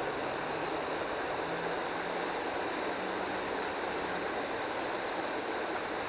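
Creek water running steadily over a small riffle, an even, continuous rush.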